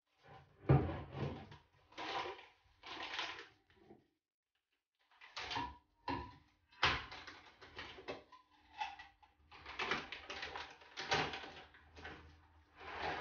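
Small containers being taken out of a kitchen wall cabinet and set down on a stone countertop: a string of separate knocks, clinks and rustles with short pauses between them.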